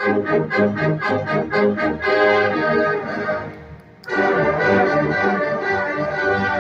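Drum corps brass hornline playing together: a run of quick, short tongued notes, a held chord that fades away, then a loud full chord coming in about four seconds in.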